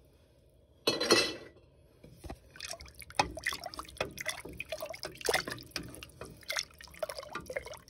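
Home-canned broth splashing into a pot of soup, with one louder splash about a second in followed by irregular sloshing and dripping as the liquid settles in the pot.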